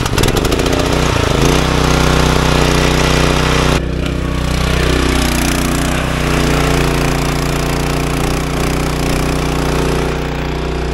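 Harbor Freight Predator 212 cc single-cylinder four-stroke gasoline engine driving a 2-inch semi-trash water pump, just started and running. About a second in its pitch rises as it speeds up, then it runs on steadily.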